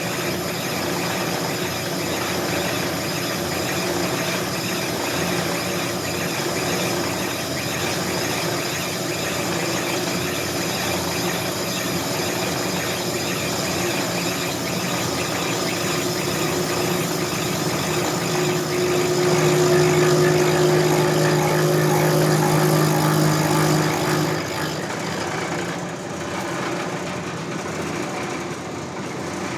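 Brake lathe running, its cutting bit taking a light cut across an automatic transmission backing plate, with a steady whine from the cut that swells louder past the middle and eases off a few seconds before the end.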